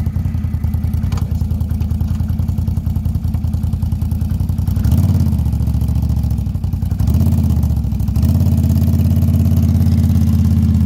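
ATV engine idling with an even low pulse, then revved about halfway through, easing off briefly and picked up again, and held at higher revs near the end as it starts to pull a loaded sled.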